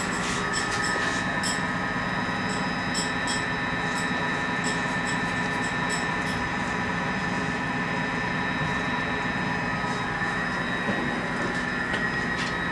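Machine room of a 1954 Otis geared traction elevator in operation: a steady machinery hum with a high whine. Sharp relay clicks come in a flurry over the first few seconds and again near the end.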